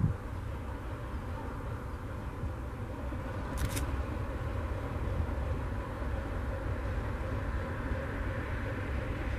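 ČSD class 751 diesel locomotive approaching at a distance with a short train, its six-cylinder ČKD diesel engine giving a steady low rumble that grows slightly louder. A low thump comes right at the start, and a brief high squeak about a third of the way in.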